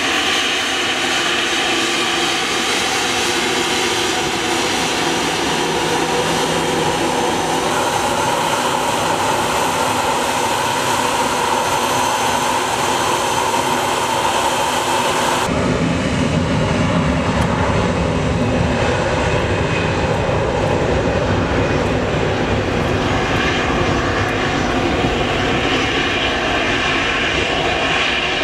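Airbus A321 jet engines whining steadily as the airliner taxis. About halfway through, the sound changes abruptly to the deeper rumble of another jet airliner on the runway, with much less high whine.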